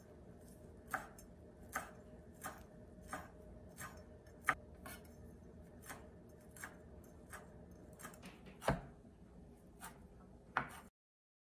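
Chef's knife chopping parsley on a wooden cutting board: separate knocks of the blade on the board, roughly one or two a second, at uneven spacing. The sound cuts off abruptly near the end.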